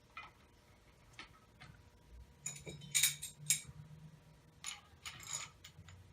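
Scattered light metallic clicks and clinks of hand tools and parts while handlebars are fitted into a dirt bike's bar clamps, thickest about two and a half to three and a half seconds in and again near five seconds.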